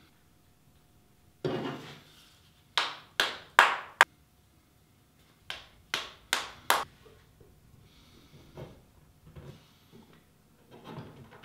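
Mallet knocking the glued joints of a wooden frame together: four sharp blows about half a second apart, then four more a little later, after a softer knock near the start.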